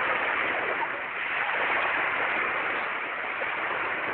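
Small sea waves washing onto a sandy beach, a steady hiss of surf.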